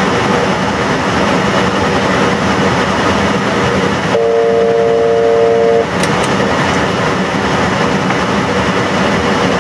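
Steady rushing airflow and engine noise inside an airliner cockpit during the approach. About four seconds in, a steady electronic tone sounds for about a second and a half, followed by a couple of faint clicks.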